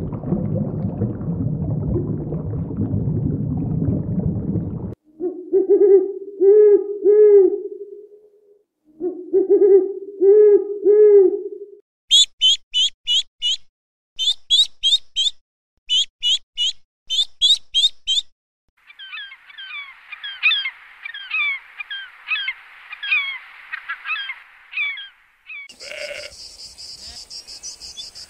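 A sequence of animal sounds: a steady low rumble of ambient noise, then two runs of low, pitched hooting calls. After that come groups of high duckling peeps, a dense chorus of chirping, and a goat bleating near the end.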